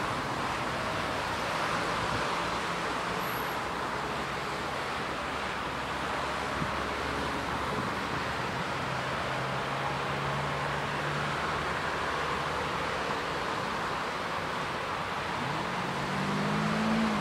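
Steady hiss of distant city traffic, with a vehicle engine's low hum coming through and its pitch climbing near the end.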